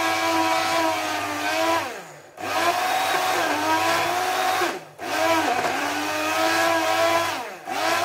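Personal take-and-shake blender's motor running, blending ice, milk and ice cream into a thick shake. It is run in pulses: three times, about two, five and seven and a half seconds in, the hum winds down in pitch and stops for a moment, then starts up again.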